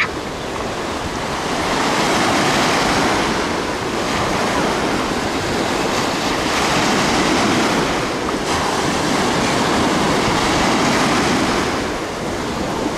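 Sea surf breaking and washing over a sandy shore, its rush swelling and easing every few seconds as waves come in.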